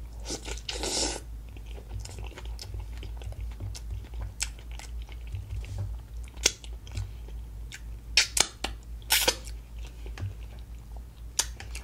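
A person chewing a mouthful of sauce-coated vegan boil, eaten by hand, with scattered sharp, wet mouth clicks and a lick of saucy fingers.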